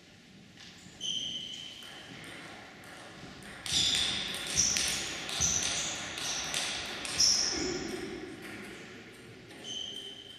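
Table tennis ball bouncing on hard surfaces between points, each bounce a sharp knock with a short high ping. There is one bounce about a second in, a quick run of bounces in the middle and another near the end.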